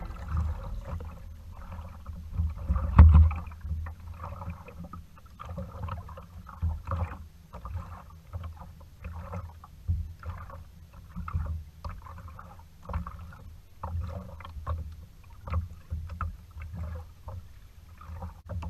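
Choppy sea water splashing and slapping against the hull of a small kayak in short uneven bursts about once a second, over a steady low rumble of wind on the microphone.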